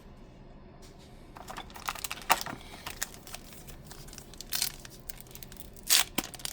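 Foil booster pack wrapper crinkling and tearing as a pack of Pokémon cards is opened, in irregular rustles that begin about a second and a half in and are loudest near the end.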